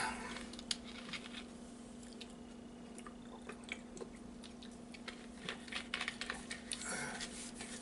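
Faint clicks and crinkles of a plastic drink bottle being uncapped, drunk from and screwed shut, with a denser run of crackles near the end.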